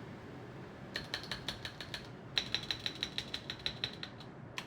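Unlubed TX clip-in keyboard stabilizers being pressed rapidly, giving quick runs of sharp plastic clicks with a high ringing note in each click. A short burst starts about a second in, and after a brief pause a longer, faster run follows.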